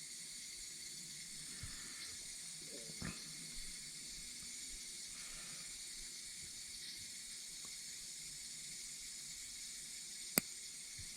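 Steady faint hiss of background noise, with a few soft handling sounds and one sharp click near the end.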